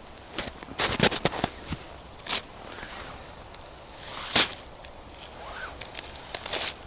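Campfire crackling, with sharp, irregular pops and snaps; the loudest pop comes about four seconds in.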